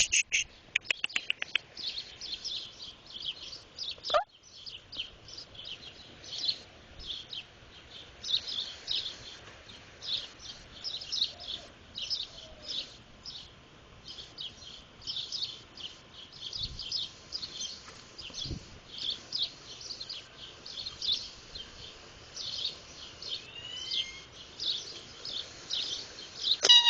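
Birds chirping in quick, irregular series of short, high chirps, with a single sharp click about four seconds in.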